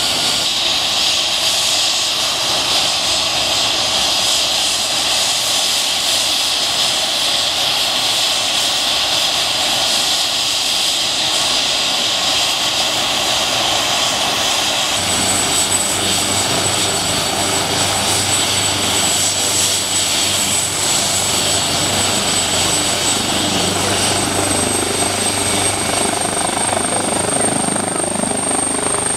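AgustaWestland AW139 air ambulance helicopter running on the ground with its rotor turning: a steady, loud turbine whine and rotor noise. About halfway through, a thin high whine and a low hum join in, and the high whine climbs slightly in pitch near the end.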